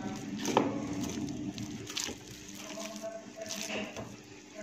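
Hand squeezing and kneading soft, wet flour-and-milk dough in a glass bowl: a few sticky squelches and slaps, the loudest about half a second in, over a steady low hum.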